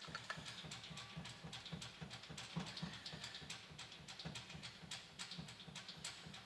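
Brake pedal of an AEC Routemaster bus being pumped repeatedly, giving a faint, quick, even run of knocks and clicks, several a second. The pumping forces excess oil out of the freshly nitrogen-charged brake accumulator back into the tank, a check that the accumulator's charge holds.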